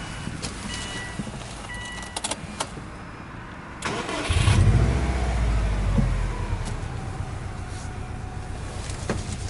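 Subaru Impreza NB-R's flat-four boxer engine cold-started: a warning chime beeps about once a second, a few clicks as the key turns, then the starter cranks briefly and the engine catches about four seconds in, flaring up loudly before settling into a steady idle.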